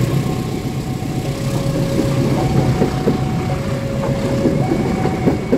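Passenger carriages of a locomotive-hauled train rolling past close by: a steady rumble with sharp wheel knocks over the rail joints. A two-note warning tone alternates about once a second, typical of a level-crossing alarm.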